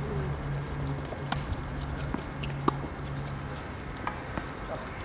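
Tennis ball struck by rackets and bouncing on the court during a rally: a few sharp pops about a second or so apart, the loudest about two and a half seconds in, over a steady low hum that drops away about halfway through.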